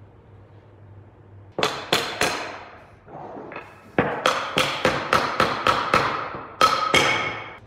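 Steel claw hammer knocking oak frame rails together at their joints on a wooden workbench. Three sharp blows, two faint taps, then a quick run of about ten blows at roughly four a second and two hard ones near the end, each with a short metallic ring.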